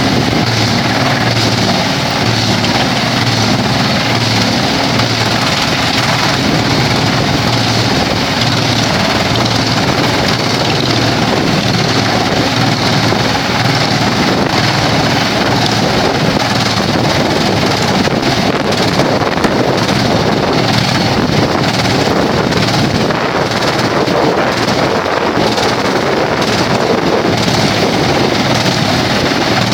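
Vantec PTF600x300 forestry wood chipper running, a loud, steady machine noise.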